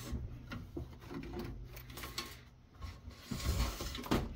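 Light knocks, rattles and rubbing as a UPS's circuit board is handled inside its steel chassis, busiest about three and a half seconds in, with a low steady hum underneath.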